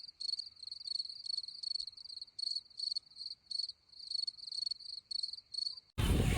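Cricket chirping: a steady run of short, high-pitched chirps, about three a second, that cuts off suddenly near the end.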